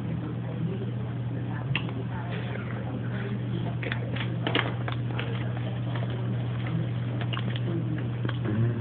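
Cheetos being crunched and chewed, in short clusters of crackling clicks, over a steady low hum.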